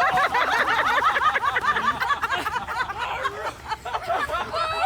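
Several people laughing together, many short rising-and-falling laughs overlapping.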